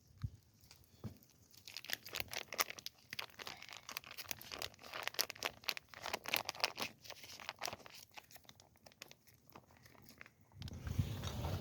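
Dense crinkling and crunching crackles, like something being handled or crushed, giving way near the end to a louder low rumbling noise.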